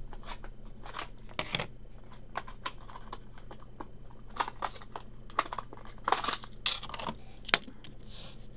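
A diecast model car being taken out of its box and plastic packaging: scattered clicks and taps, with a few crinkling rustles, the loudest about six to seven seconds in.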